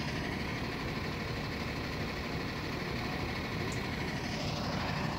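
Vehicle engine idling with a steady low rumble.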